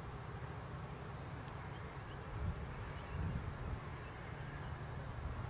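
Wind buffeting the microphone as an uneven low rumble that swells in gusts around the middle, with faint bird chirps now and then.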